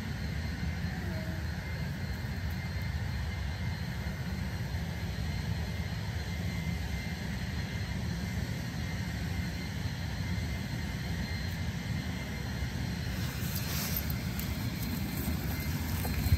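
Steady low rumbling noise with no distinct pitch, with a few faint rustles and clicks near the end.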